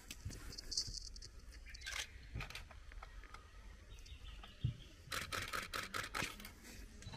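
Camera shutters clicking: scattered single shots, then a rapid burst of continuous-shooting clicks about five seconds in.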